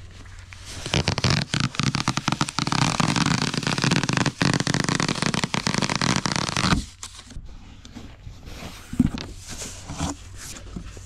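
Packaging rustling and crackling as the new bike is unpacked for assembly, dense and busy for about six seconds, then quieter scattered handling sounds.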